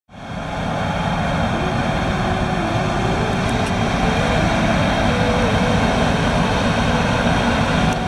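Case IH combine harvester running steadily as it harvests wheat, a continuous engine and threshing noise that fades in at the start.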